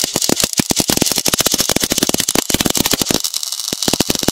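MAG welding arc from a welder-driven metal 3D printer laying a bead of steel: loud, fast, irregular crackling, many sharp pops a second.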